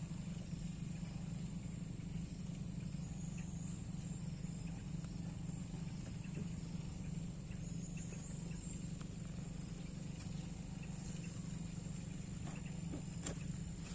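Steady outdoor field ambience: a high insect drone over a low rumble, with a couple of faint clicks near the end as eggplant plants are handled.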